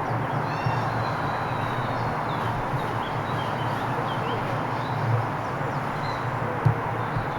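Small birds chirping and singing in short scattered phrases over a steady outdoor background noise, with one brief knock about two-thirds of the way through.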